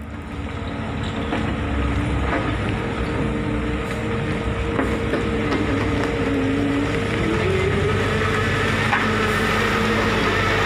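Diesel engines of Hino dump trucks running as they come closer over a rough dirt road, growing louder over the first two seconds and then holding steady. The engine note rises about seven seconds in.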